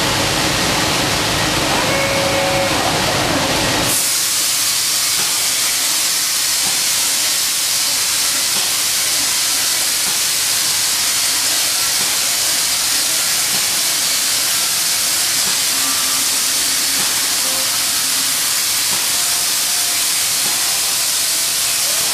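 Robotic spray-up gun spraying resin and chopped glass fibre, giving a loud, steady hiss. About four seconds in, the deeper rumble underneath drops away and the hiss goes on.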